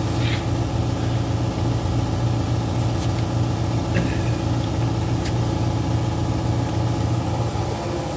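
A motor running with a steady low drone, with a few light clicks about three, four and five seconds in.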